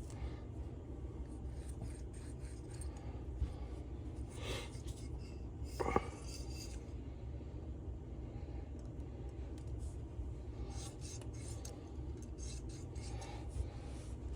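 Faint handling noises of small engine parts on a workbench: light clicks and rubbing over a low steady hum, with a sharper knock about six seconds in.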